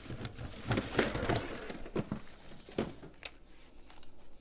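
Rustling and crinkling handling noise with several sharp knocks and clicks as a USB keyboard is taken out and set down, growing quieter about three seconds in.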